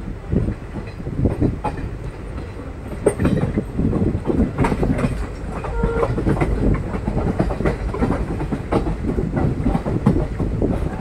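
Passenger train running at speed, heard from on board: a steady rumble with the wheels clattering over rail joints.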